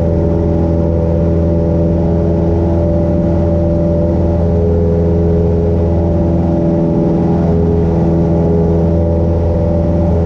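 Cessna 172 Skyhawk's piston engine and propeller running steadily in flight at a constant pitch, heard close up from the engine cowling.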